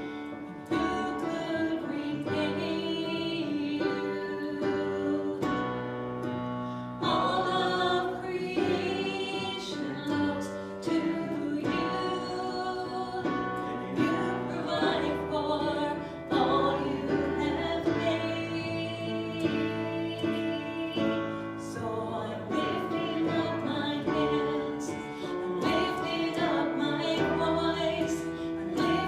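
Music: several voices singing a gospel song together with instrumental accompaniment.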